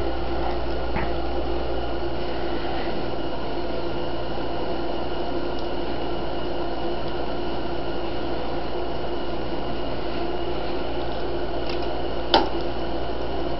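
Steady mechanical hum, made of a low rumble and a few constant tones, with one sharp click near the end.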